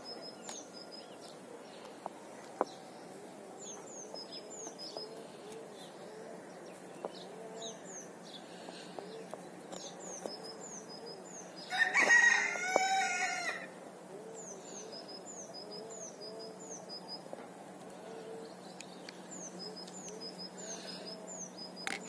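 A rooster crows once, a loud call of about two seconds near the middle. Small birds chirp in short, high, repeated phrases throughout, over a steady low hum, with a single sharp click a couple of seconds in.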